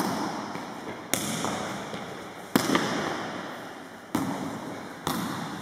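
Sharp slaps of bare hands striking an indiaca, a feathered hand shuttlecock, in a rally: five hits about one to one and a half seconds apart, each ringing out in a long echo of the sports hall.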